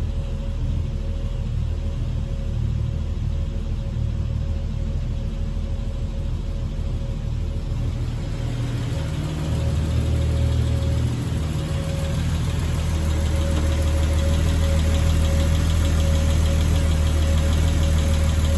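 1967 Triumph Vitesse 2-litre straight-six, freshly rebuilt and not yet tuned, idling steadily on its refurbished twin carburettors. At first it is heard muffled from inside the cabin. About nine seconds in it grows louder and brighter as the engine bay is approached.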